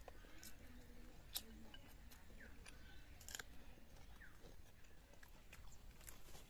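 Faint, scattered clicks and smacks of a person chewing food eaten by hand.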